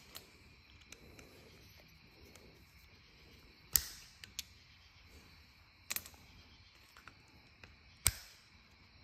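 Three sharp clicks about two seconds apart, with a few fainter ticks between, as a small motorcycle piston and pieces of its broken piston ring are handled over a workbench.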